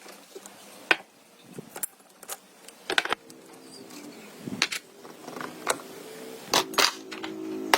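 Irregular sharp metallic clicks and clinks, as of hand tools and small metal motorcycle parts being handled and set down, about a dozen strikes. From about three seconds in, a low steady hum of several tones joins underneath.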